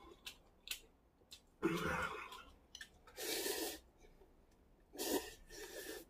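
A man eating spicy instant ramen. There are three loud, noisy bursts of mouth and breath sounds, about two, three and five seconds in, with faint small clicks between them.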